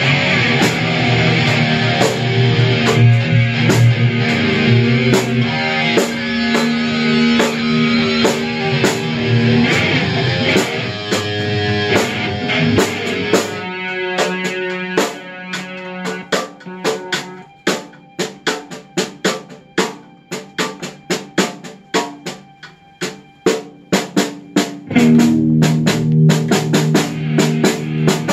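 A live rock band playing: electric guitars through Marshall amps and bass over a drum kit. About 13 s in the guitars drop back, leaving the drums mostly alone, and the full band comes back in near the end.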